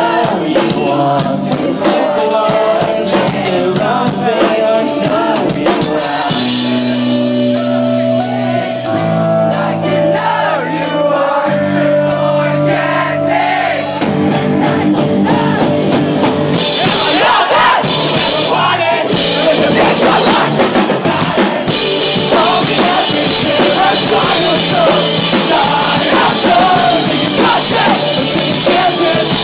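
Pop-punk band playing live, with singing, electric guitars, bass and drum kit. About six seconds in, the drums thin out into a sparser section with held low notes. The full band builds back in over the following several seconds.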